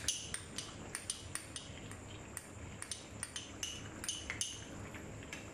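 A spoon stirring sauce in a non-stick frying pan, knocking and scraping against the pan in irregular clicks, about two or three a second.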